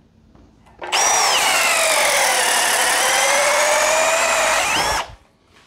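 Milwaukee Fuel cordless hammer drill on speed 2 in drill mode, boring a spade bit down into a wooden block. The motor whine starts about a second in, drops in pitch under load, rises again near the end and cuts off sharply after about four seconds.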